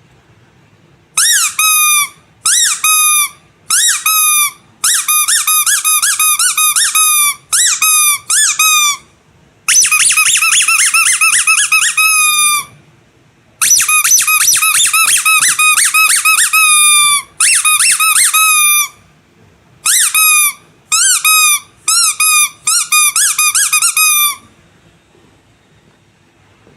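Rubber squeaky animal toy squeezed again and again, giving high-pitched squeaks that each bend up and down in pitch. They come singly and in quick runs, starting about a second in and stopping a couple of seconds before the end.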